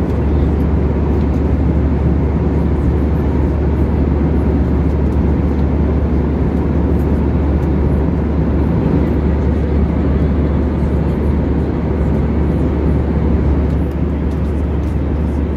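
Airbus A320 cabin noise in flight: a steady, loud low rumble with a rush of air from the engines and airflow, unchanging throughout.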